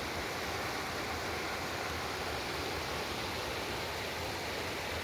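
The New River's water rushing steadily through channels in the bedrock.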